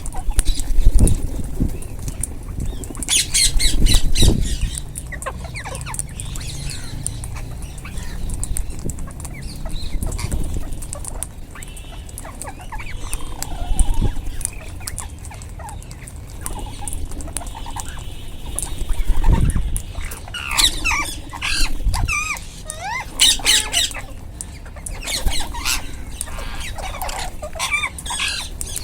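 Rose-ringed (Indian ringneck) parakeets giving harsh, screechy squawks in bursts, a few about three seconds in and a busy run of overlapping calls from about twenty seconds in. Low dull thumps or rumbles come every few seconds, the loudest near the start.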